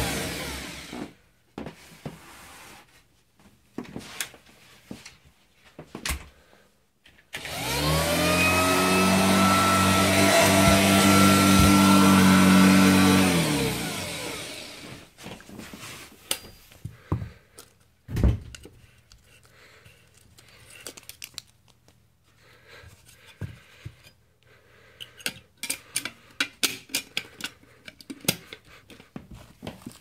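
Hoover Junior 119 upright vacuum cleaner motor winding down as it is switched off, then switched on about seven seconds in, spinning up with a rising whine, running steadily for about six seconds and winding down again. The rest is scattered knocks and clicks, with a burst of rattling clicks near the end.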